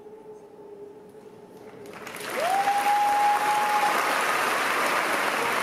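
A steady held tone fades under, then audience applause breaks out about two seconds in and carries on loudly. A long whistle from the crowd rises and holds for about a second and a half.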